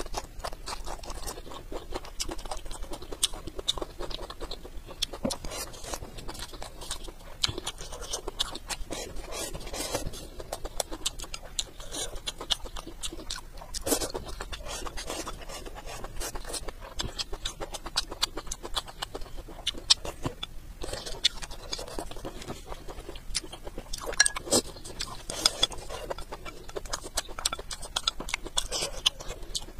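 Close-up chewing of crisp bamboo shoots with rice and greens: many short, sharp, irregular crunches and mouth sounds.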